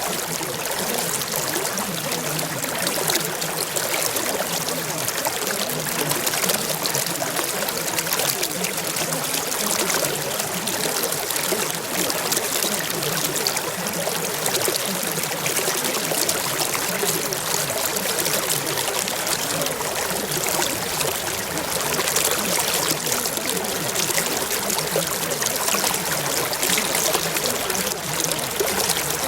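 Steady running water, an even unbroken rush.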